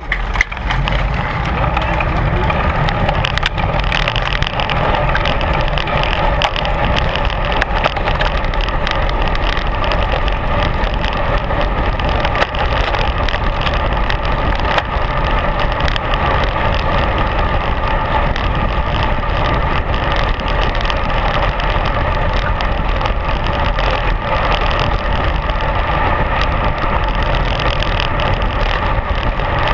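Steady wind rush and road noise picked up by an action camera on a racing bicycle ridden at speed.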